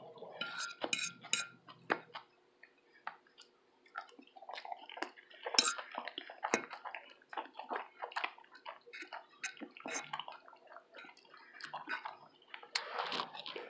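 Wet mouth sounds of eating: chewing and lip smacks, with scattered clicks and clinks of dishes or cutlery.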